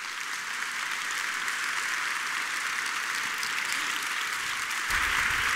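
Audience applauding steadily, a sustained even clapping that swells slightly near the end.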